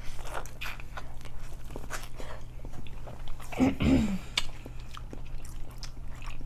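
Close-miked eating of a seafood boil: wet chewing and lip-smacking clicks throughout. A short low vocal 'mm' sounds a little past halfway.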